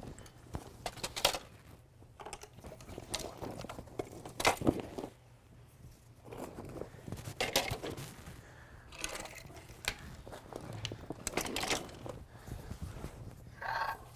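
Folding canoe frame ribs being handled and packed into a cloth bag: irregular clacks and knocks of the parts against each other, with rustling of the bag between them.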